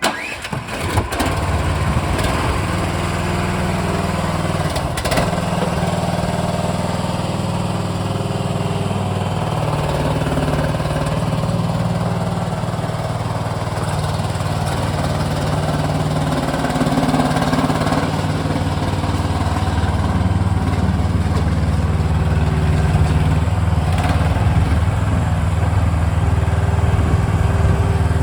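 Engine of a C360 crawler skid steer loader running steadily, its note shifting a little now and then.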